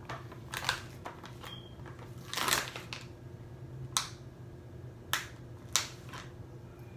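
Plastic packaging of vegan cheese slices being handled and opened: a few sharp crackles and snaps, with one longer crinkle about two and a half seconds in.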